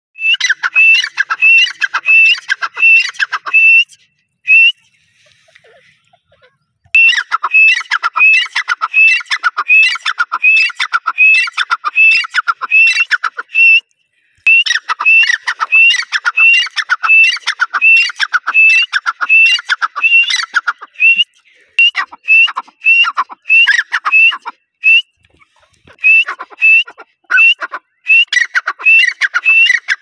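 Grey francolin calling: a loud series of sharp, ringing notes repeated about two a second, in long runs broken by a few short pauses.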